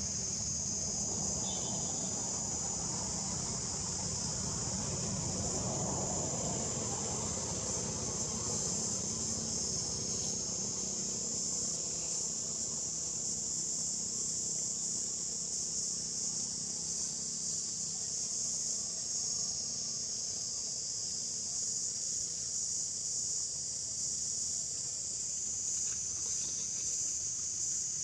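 A steady, high-pitched insect chorus drones on without a break. A low rumble sits underneath it and fades after about ten seconds.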